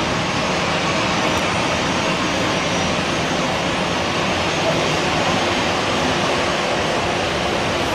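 Jet engines of an Airbus A320-family airliner running at taxi power, a steady rushing noise with a faint high whine.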